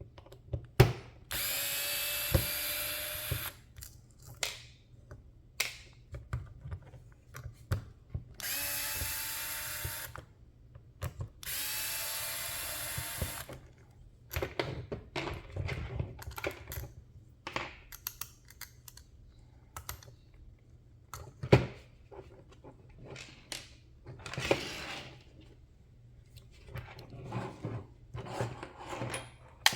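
Small electric screwdriver running in three short bursts, each a couple of seconds long, backing out small screws. Between and after the bursts come light clicks and taps of small parts and screws being handled.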